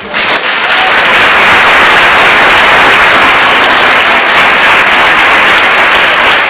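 Audience breaking into loud applause, starting suddenly, with one person clapping right beside the microphone.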